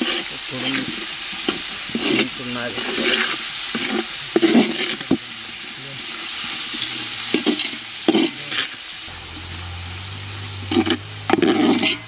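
Chopped onions sizzling as they fry in hot oil in a cooking pot, with irregular scraping strokes as they are stirred; they are being browned to a reddish colour for a chicken gravy base.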